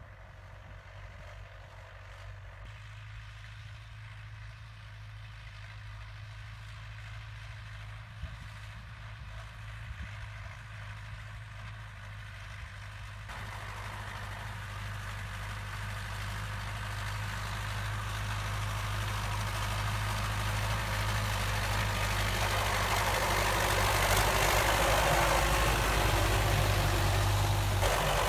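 Belarus 820 tractor's four-cylinder diesel engine running steadily as it pulls a plough through the field, growing steadily louder as the tractor comes close.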